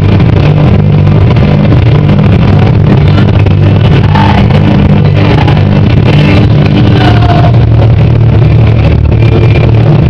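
Loud paso doble music played over the hall's sound system, with a dense, sustained low accompaniment and melody notes above it that change every second or so.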